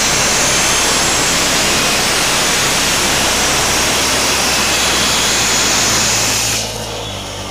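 Angle grinder cutting or grinding a rectangular steel hollow section, a loud steady hiss that stops abruptly near the end.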